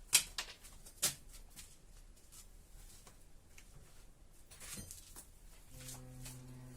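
Sharp clicks and clinks of metal engine parts and tools being handled: two loud ones near the start and about a second in, with lighter ticks between. A brief low steady hum comes in near the end.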